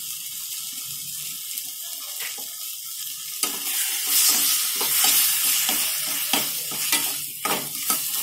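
Onion-tomato masala sizzling in a steel kadai, then a steel ladle stirring and scraping it from about three and a half seconds in, in repeated strokes.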